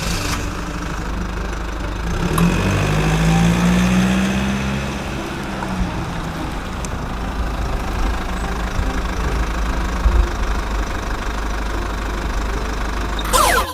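Truck engine running steadily, its pitch rising and then falling again a few seconds in.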